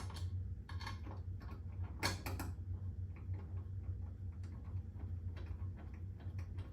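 An M6 screw being turned by hand into a threaded mounting hole on the back of a flat-screen TV to check its fit, giving a string of light, irregular metallic ticks and clicks, a little louder near the start and about two seconds in. A steady low hum sits underneath.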